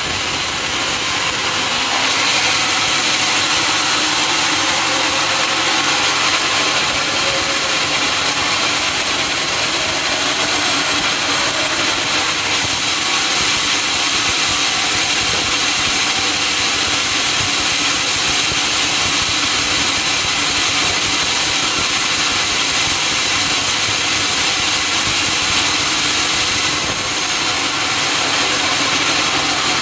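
Sawmill saw running steadily and cutting a teak log: an engine hum under a loud, even hiss.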